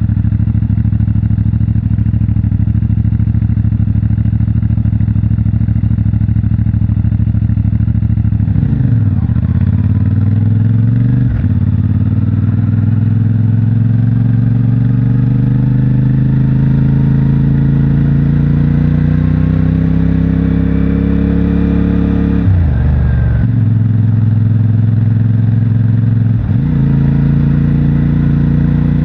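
CFMOTO 450MT's parallel-twin engine through its stock exhaust, holding a steady note at first. The revs then drop and climb back, rise slowly for several seconds, and dip sharply twice near the end at gear changes.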